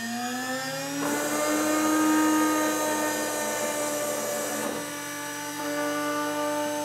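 High-speed spindle of a CNC engraving machine running with a steady whine, its pitch rising a little about a second in as the cutter works the plate. A higher hiss joins about a second in and drops away about two-thirds through.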